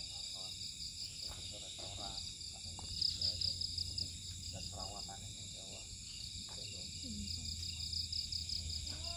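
Night insects, crickets, chirping in a steady, fast high-pitched trill, with faint indistinct talking and a low hum underneath.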